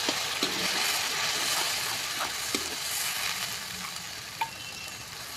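Ginger-onion paste dropped into hot oil and onions in a kadhai: a loud sizzle that starts suddenly and slowly dies down. A few clicks and scrapes of a slotted steel spoon against the pan run through it.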